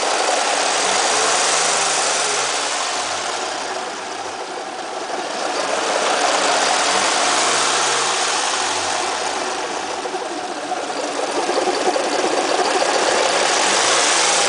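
Nissan Maxima's 3.5-litre VQ V6 engine running with a strange noise that the owner cannot place. The sound swells and fades slowly, dipping about four seconds in and again about ten seconds in.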